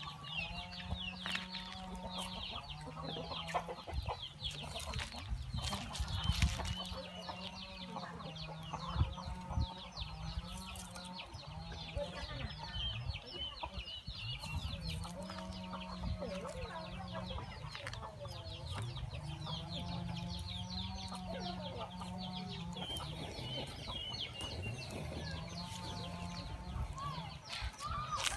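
Chickens clucking repeatedly in the background, with scattered sharp crackles and pops from a small twig-and-straw fire burning under a metal grill.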